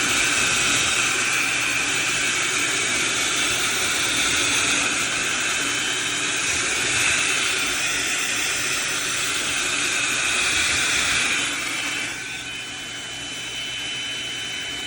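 HOTO cordless handheld vacuum running at full suction: a steady high-pitched motor whine with a rush of air as it sucks at hair on a countertop. It gets quieter about twelve seconds in.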